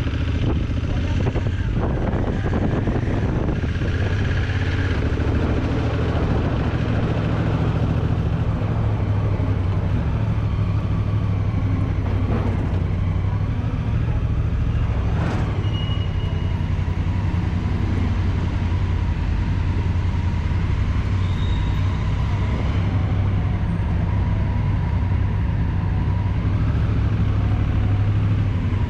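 Honda CRF1000L Africa Twin's parallel-twin engine running steadily: an even, low drone that doesn't rise or fall.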